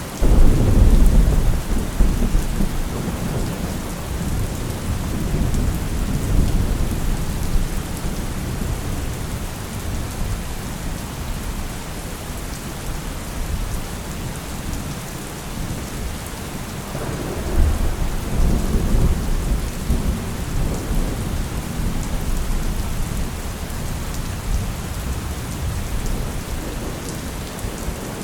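Steady rain with rolling thunder: a heavy rumble right at the start that slowly dies away, and a second rumble swelling up about two-thirds of the way through.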